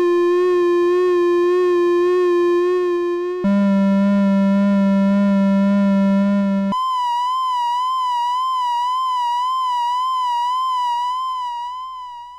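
Casio VL-1 monophonic synthesizer playing three held notes on its flute waveform with vibrato at maximum: a middle note, a lower note about three seconds in, then a high note from about seven seconds in that fades out near the end. Every note wobbles in pitch with a deep, slow vibrato.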